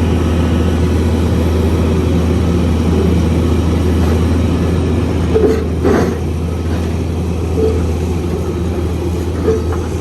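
Heavy construction machine's engine running steadily with a deep hum, with a couple of short knocks about halfway through.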